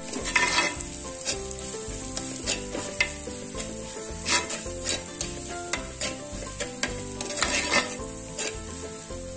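Onion-tomato masala with spice powders sizzling in coconut oil in a clay pot, with a steel spoon stirring and scraping against the clay in irregular strokes, about one or two a second.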